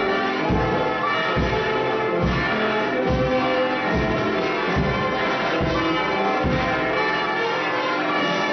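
Church bells pealing, with many overlapping tones and strikes about once a second.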